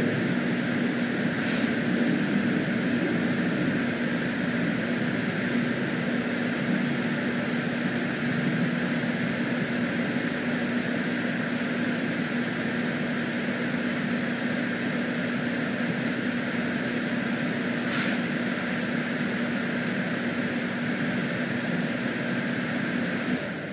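Steady low mechanical hum over an even hiss, with a couple of faint sharp ticks; the hum cuts off near the end.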